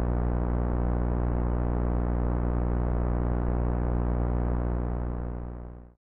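Low, sustained synthesizer drone held on one chord as background music, fading out in the last second.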